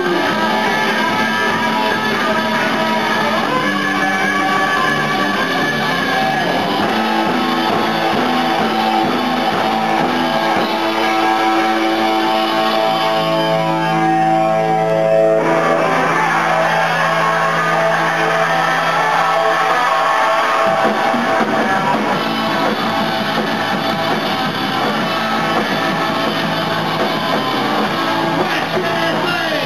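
A rock band playing live, loud and distorted, with electric guitar, bass and drums. About halfway through, the sound thins to a few held notes for a few seconds, then the full band comes back in.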